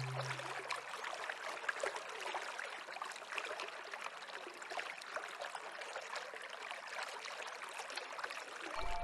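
Small stream running, a steady trickling and splashing of water. The last low music tones die away in the first second, and music comes back in near the end.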